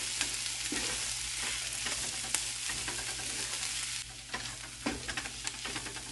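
Vegetable and mashed-potato masala sizzling in a nonstick frying pan while it is stirred with a wooden spatula, with scrapes and taps of the spatula against the pan. The sizzle drops off abruptly about four seconds in, leaving mostly the scraping strokes.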